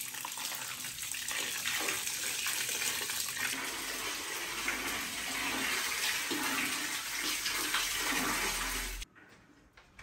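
Water pouring and splashing back into a tub as wet skeins of yarn are lifted out and wrung by hand, a steady rush that cuts off suddenly about nine seconds in.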